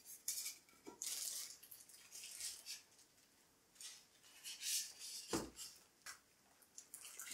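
A clear plastic bag crinkling and rustling in short irregular bursts as it is handled, with one dull thump about five and a half seconds in.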